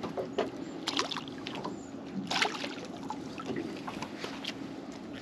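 A hooked yellowfin bream splashing at the water's surface beside a boat as it is played in and swung out of the water, with scattered short splashes and clicks, the loudest about two and a half seconds in.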